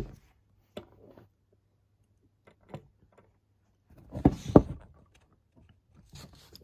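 Handling knocks and taps around hard plastic toy cars on a wooden desk: a sharp click at the start, a few light taps, then a cluster of louder knocks about four seconds in.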